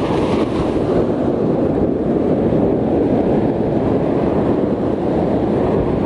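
Heavy ocean surf breaking and rushing up the beach, mixed with wind buffeting the microphone: a steady, dense roar with no let-up.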